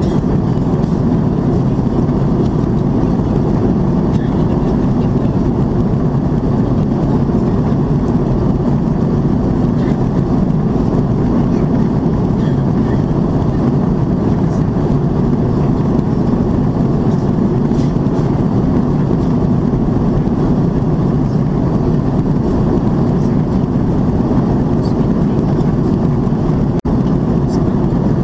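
Steady roar of an Airbus A330-300 in its climb, heard inside the passenger cabin: engine noise and rushing air, deep and even. There is a momentary drop-out near the end.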